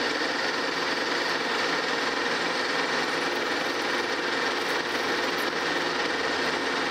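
Monarch Model K metal lathe running steadily, with a parting tool cutting into the spinning screw blank to part it off.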